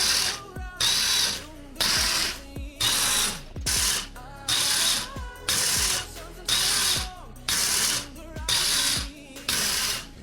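Gear motor driving a 3D-printed telescopic tube linear actuator back and forth between two set points. Each move is a short whirring burst of gears, repeating roughly once a second, with a faint pitch glide as the motor speeds up and slows.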